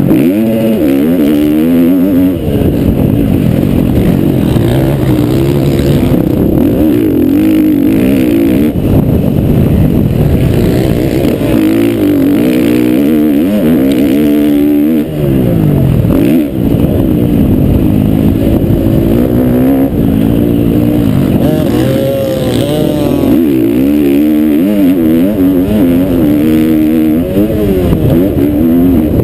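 Motocross bike engine heard from on the bike, revving hard: its pitch climbs and falls again and again as the throttle opens and shuts through the track, with a couple of brief drops about halfway through.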